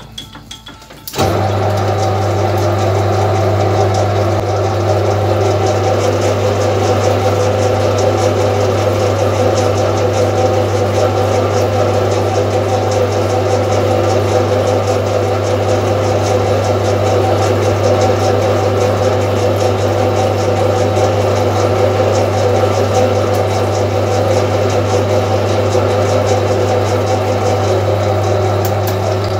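A metal lathe is switched on about a second in and runs steadily with a strong low hum while a threading tool cuts an internal thread.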